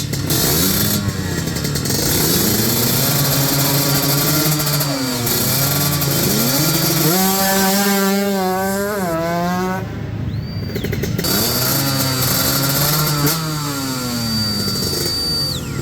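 Racing motorcycle engines revving hard, the pitch climbing in steps and dropping back with each gear change, over and over.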